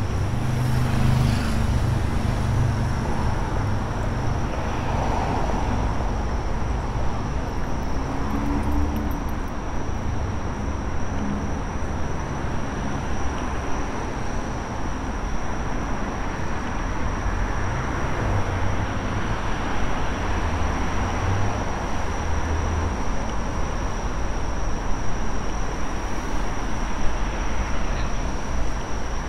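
Steady road traffic noise from cars passing on a city avenue, with a low engine rumble that swells and fades as vehicles go by.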